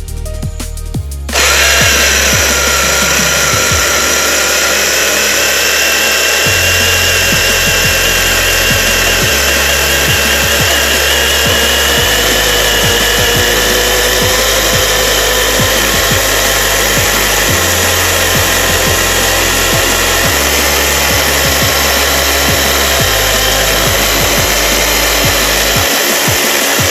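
Electric chainsaw (Shindaiwa Pecker A10) running with a steady motor whine as it cuts through wood on a freshly filed chain, cutting fast. It starts about a second in and stops near the end.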